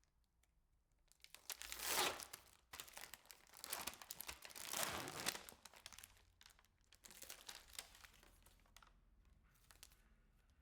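Plastic packaging of a new urinary night drainage bag being torn open and crinkled, in two loud bouts of rustling about two and four seconds in, then fainter handling.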